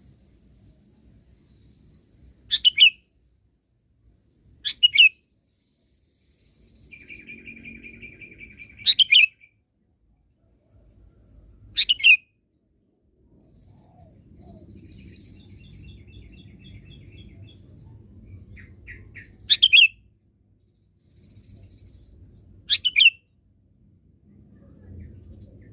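Sooty-headed bulbul (kutilang) giving six short, sharp calls spaced a few seconds apart, with a buzzy trilling note about eight seconds in, over a faint low rumble.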